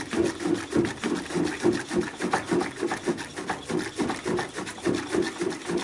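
Small hand air pump being worked quickly, its strokes rasping evenly at about four a second, as it pumps air into a sealed fermenter bucket to pressurise the wort for oxygenation.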